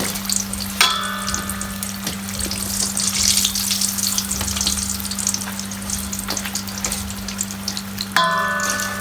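Food deep-frying in hot oil, a steady sizzle, with a low steady hum underneath. Two short ringing metallic tones sound about a second in and again near the end.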